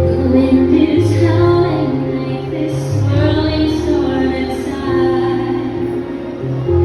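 Music playing: a soft song with a woman's singing voice over a steady bass and sustained instrumental notes.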